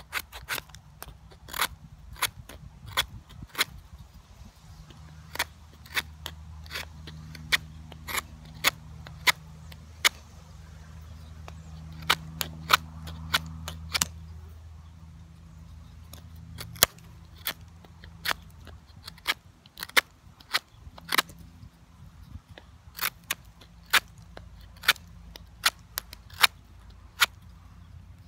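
Knife carving a tree-root spindle for a hand drill: a run of sharp clicks and snaps as the blade bites into the wood, irregular, about one or two a second.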